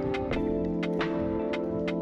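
Background music: sustained chords over a light, steady beat.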